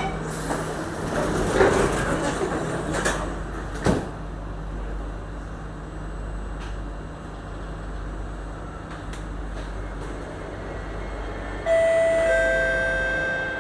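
Singapore MRT train doors sliding shut with a knock about four seconds in, then the train running with a steady low rumble. Near the end a few steady tones come in, louder than the rumble.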